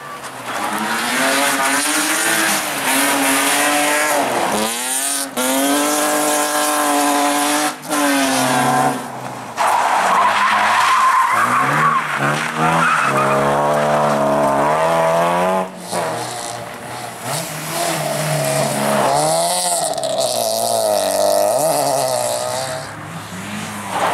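Small petrol-engined rally cars driven flat out on loose gravel, one after another: engines revving high and dropping sharply at each gear change. Tyres slide and scrabble on the gravel.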